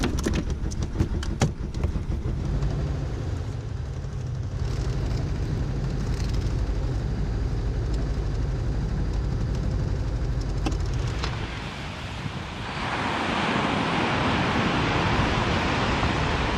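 Low, buffeting rumble aboard a sailboat under way, with a few sharp clicks in the first couple of seconds. About twelve seconds in it gives way to the steady hiss of small surf breaking on a sandy beach.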